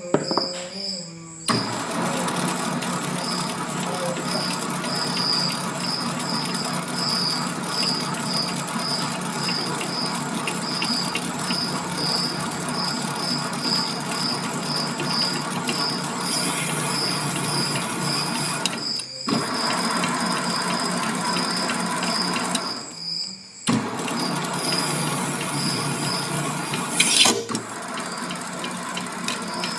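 MX 600A mini lathe starting up and running, its motor and spindle making a steady hum. The sound cuts out briefly twice and restarts, with a short squeal near the end.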